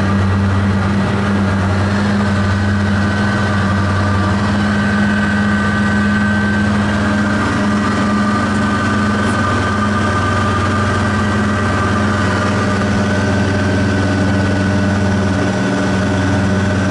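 Light aircraft's engine and propeller droning steadily, heard from inside the cabin in flight.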